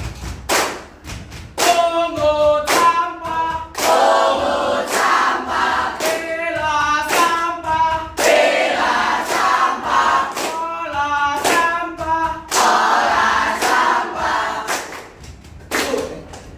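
A group of teenage students singing and chanting a cheer song in unison, with sharp hand claps marking the beat.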